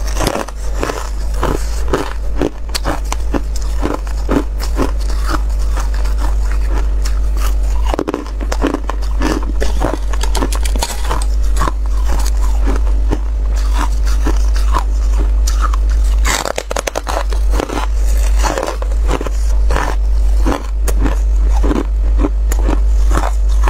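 Close-miked biting and chewing of frost-covered freezer ice: a dense run of sharp crunches, one after another, over a steady low hum.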